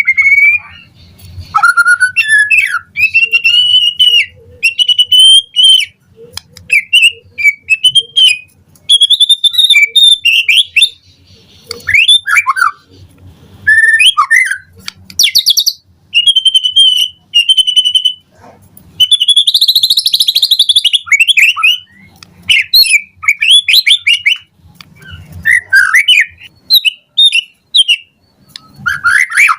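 White-rumped shama (murai batu) singing a loud, varied song of short whistled phrases and trills broken by brief pauses. About two-thirds of the way through comes a harsher, rasping phrase.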